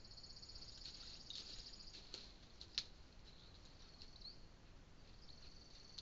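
Faint, high insect trill, like a cricket, that stops about two seconds in and starts again near the end. Between the trills come two sharp clicks, the second one the loudest sound.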